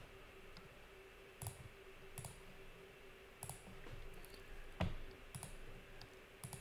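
Computer mouse clicking about six times at irregular intervals, over a faint steady hum.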